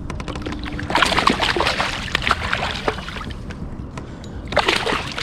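Water splashing and sloshing at the side of a kayak, in a long burst about a second in and a shorter one near the end.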